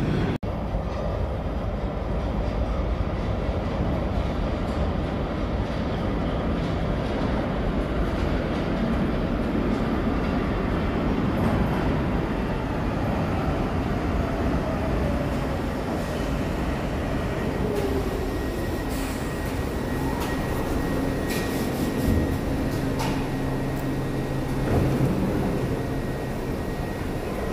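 R62 subway train pulling into the station: a steady rumble of wheels on rail, with the motor whine falling in pitch as it slows. After it stops there is a steady high tone and a few sharp clicks.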